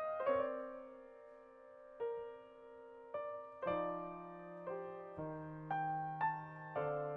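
A piano plays a slow, soft passage of single notes and chords, each struck and left to ring and fade, with no singing.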